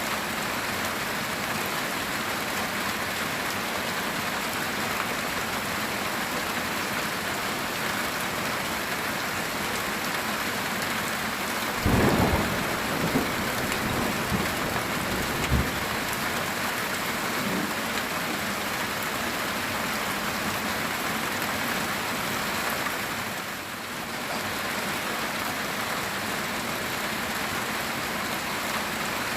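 Heavy rain falling steadily on a metal tin roof. Thunder breaks out about twelve seconds in and rumbles for a few seconds.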